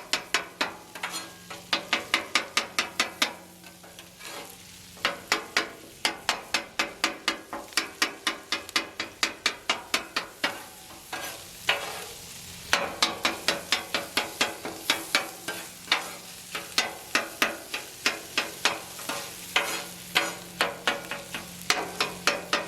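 Metal spatula edges chopping hot dogs on a flat-top griddle: rapid clanks about four a second, in runs with two short breaks, over the sizzle of the frying meat.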